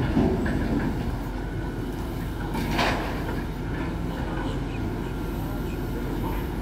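Diesel engine of a grapple-loader debris truck running steadily under the work of its hydraulic knuckle-boom grapple, with one short knock about three seconds in.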